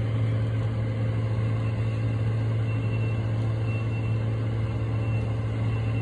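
An engine idling: a steady, unchanging low hum.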